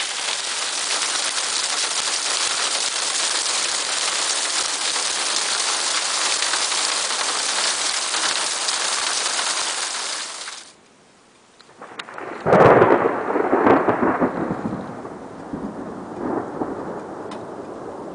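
Heavy rain drumming steadily on a car's roof and windscreen, cut off abruptly about ten seconds in. About a second later thunder breaks with a loud, rolling rumble that swells twice and dies away over a few seconds.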